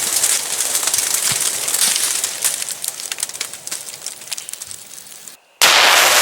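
Aftermath of a tannerite explosion: the blast's echo fades away, dotted with many small ticks and crackles of falling pumpkin debris. After a brief dropout about five and a half seconds in, another loud blast starts suddenly.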